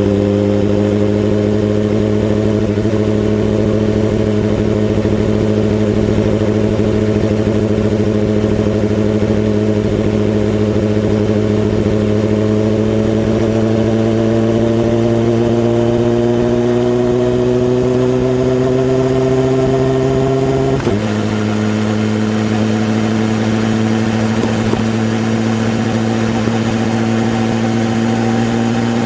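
BMW S1000RR inline-four engine running steadily under light load. Its pitch climbs slowly, then drops abruptly about 21 seconds in and holds steady again.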